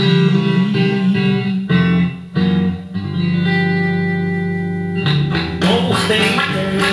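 Country music instrumental with a guitar lead: picked notes, a long held chord about halfway through, then a fuller, busier accompaniment from about five seconds in.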